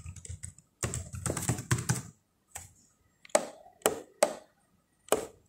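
Typing on a computer keyboard: a quick run of keystrokes about a second in, then four separate, louder clicks spaced about half a second apart.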